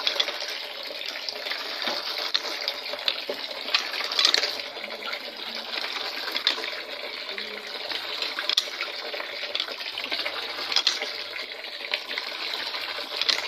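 Tap water pouring steadily into a plastic basin and splashing on a plastic dipper in it, with a few sharper splashes.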